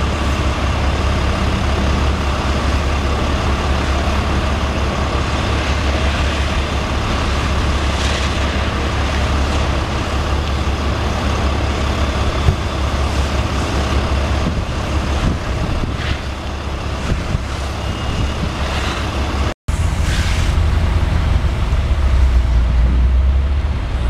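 Fire truck engine running steadily: a constant low rumble with a faint steady hum above it. The sound drops out for an instant about twenty seconds in, and the rumble is heavier after the gap.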